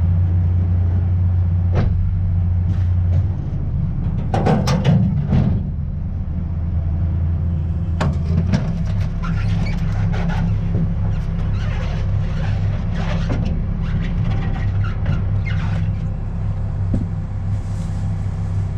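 Steady low engine hum from a vehicle, shifting slightly in pitch twice. Over it come knocks and scrapes of things being moved about in a pickup truck's metal bed, loudest about four to five seconds in, with more through the middle.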